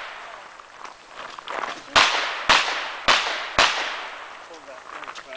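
Revolver fired four times in quick succession, about half a second apart, each shot trailing off after the crack.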